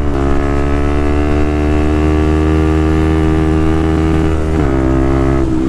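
Benelli TNT 125's single-cylinder engine pulling steadily at road speed, heard from the rider's seat with wind rush over the microphone. The engine note drops a step about four and a half seconds in and dips briefly again near the end.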